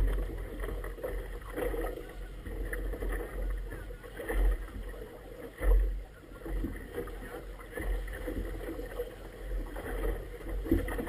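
Wind buffeting the camera microphone in uneven gusts, with water lapping and slapping against an inflatable boat's tube. The strongest gust comes a little past halfway.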